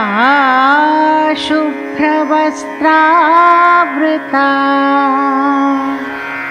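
Indian classical-style devotional music: a melody with sliding, wavering notes, in short phrases with brief pauses, over a steady drone.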